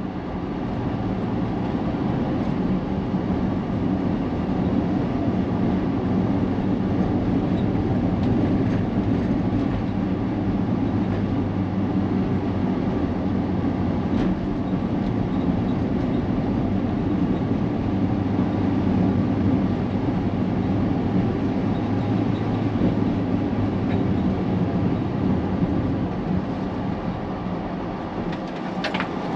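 Steady drone of a vehicle travelling on a city road: engine and tyre noise while driving.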